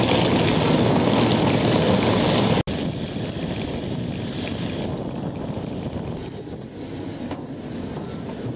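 A hard-shell wheeled suitcase rolling over coarse tarmac: a loud, steady rolling noise that cuts off suddenly about two and a half seconds in. After that comes a quieter steady rumble, with a faint high whine from about six seconds in.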